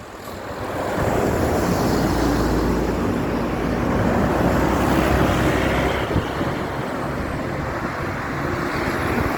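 A large bus driving past close by: engine and tyre noise swells about a second in and stays loud, with a low engine hum strongest in the middle.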